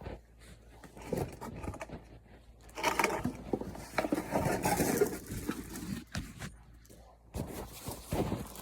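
Handling noises while a backpack is unpacked: irregular rustling and scraping with small clicks, busiest in the middle.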